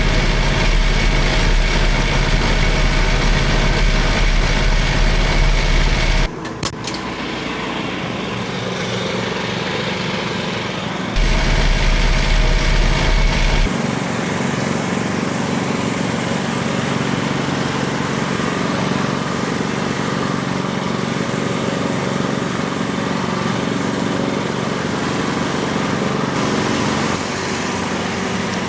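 Frontier OS35 portable band sawmill running steadily, its engine driving the band blade through a large tulip poplar log. The sound shifts abruptly about six seconds in and again around eleven and fourteen seconds, when a deep rumble drops out, returns briefly and drops out again.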